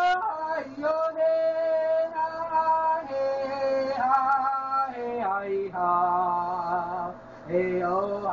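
A solo voice singing slow, long-held notes; the notes drop lower about five seconds in, and the later ones carry a noticeable vibrato.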